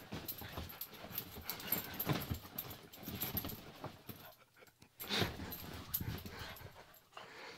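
A pug's excited noises and the scuffing and rustle of bedding as she digs and tears around on a bed in a fit of post-walk zoomies, with a brief lull a little past halfway before a loud burst.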